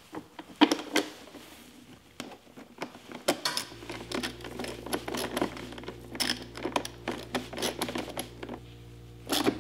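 Hand screwdriver driving mounting screws into a plastic glovebox extension: irregular small clicks and taps of the tool and screws against the plastic. A steady low hum comes in about four seconds in.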